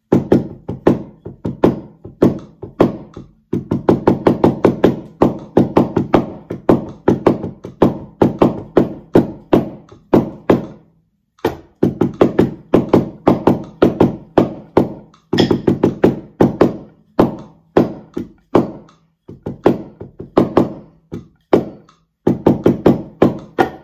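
Wooden taiko bachi beating out a fast, syncopated taiko rhythm on a cloth-covered practice surface, giving dull thunks in quick runs of strikes broken by short pauses.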